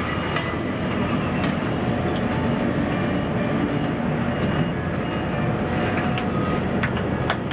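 Cable car gondola rumbling and rattling steadily as it runs along the cable, with a few sharp clicks near the end.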